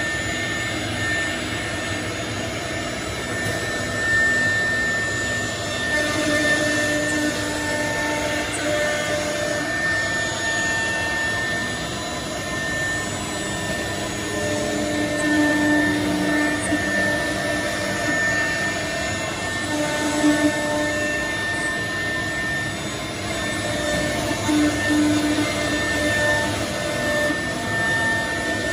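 CNC router cutting a wood panel held down on its vacuum table, with the KVF 250 m³ vacuum pump running: a steady machine whine with a high tone throughout and a lower tone that swells louder now and then as the cutter works.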